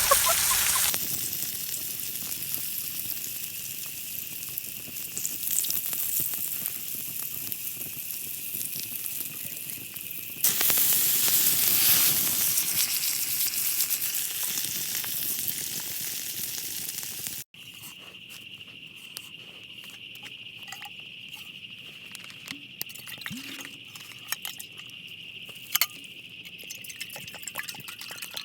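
Food sizzling over a campfire, a steady hiss that jumps in loudness at a couple of sudden cuts. After a cut about two-thirds of the way in it goes quieter: a steady high drone, as of night insects, with scattered sharp crackles.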